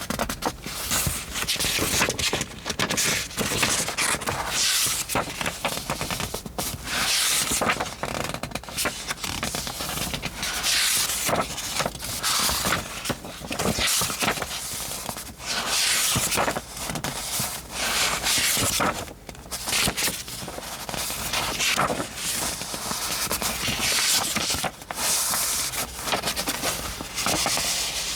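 Sheets of textured craft paper being handled, rustling and crinkling in irregular surges.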